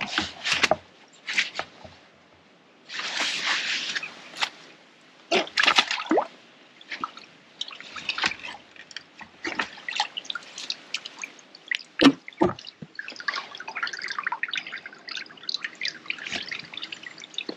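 Water dripping and sloshing amid irregular clicks, knocks and rustles of fishing tackle being handled by an angler at the water's edge, with a longer rustling burst about three seconds in.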